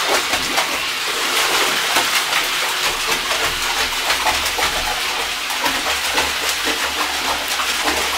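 Boxer puppy pawing and splashing in shallow bathwater in a tub, a steady run of small splashes and sloshing.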